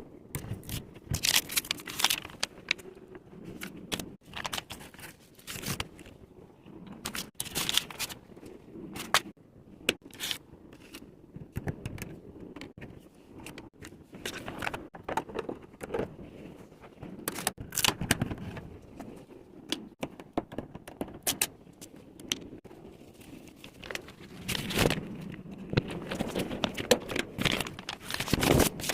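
Items being taken out of and put back into a mini refrigerator: irregular scraping, crinkling of packaging and clinking knocks throughout.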